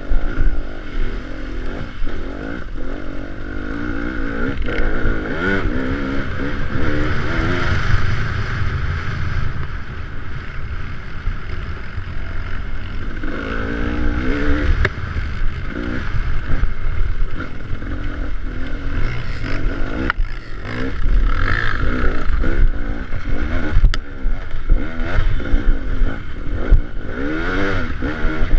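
Off-road vehicle engine on a trail ride, revving up and falling back over and over under changing throttle, with rattles and knocks from rough ground.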